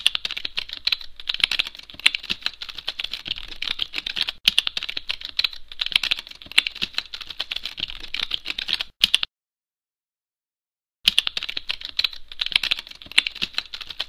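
Fast computer-keyboard typing: a dense, irregular run of key clicks that stops dead for nearly two seconds about two-thirds of the way in, then starts again.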